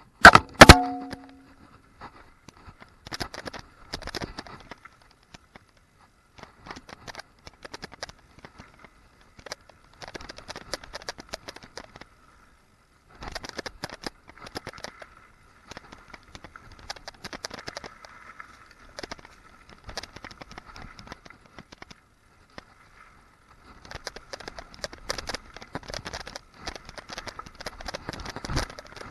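Vitus hardtail mountain bike rattling down a rough dirt trail: bursts of chain slap and frame clatter over bumps, with a steady high buzz like the freehub ticking while coasting. A loud metallic knock with a short ringing note about half a second in.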